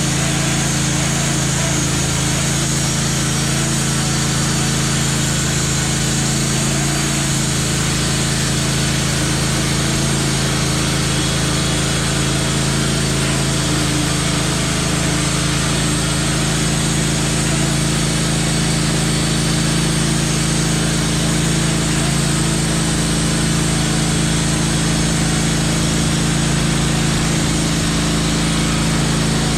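An engine running steadily at constant speed, with a loud mechanical hum and a hiss of noise over it.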